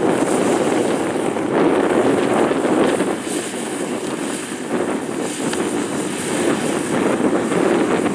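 Kubota DC-70 Plus combine harvester running under load as it cuts and threshes lodged rice, a steady dense machine noise with wind buffeting the microphone.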